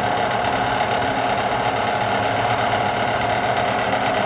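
Jet wood lathe running steadily with its motor whine while wood shavings are held against the spinning wooden goblet to burnish it, adding a rubbing hiss that fades about three seconds in.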